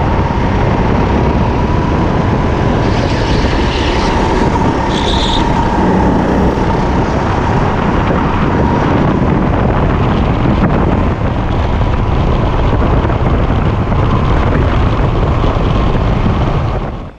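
Rental racing kart's engine running at speed, a steady high engine note under a heavy rush of wind over the onboard microphone.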